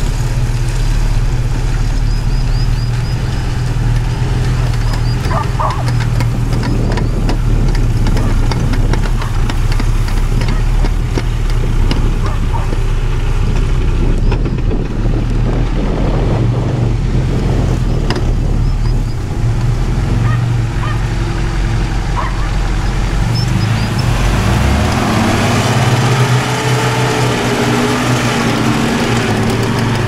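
UAZ Patriot SUV's engine running under load as it drives through mud and sand, with a steady low drone. Near the end the engine revs up and down as a wheel spins in the sand.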